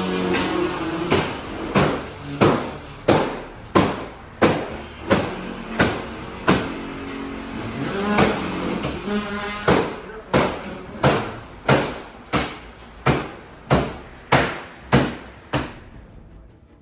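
Background music with a hard, steady percussive beat, about three strikes every two seconds over sustained tones, fading out near the end.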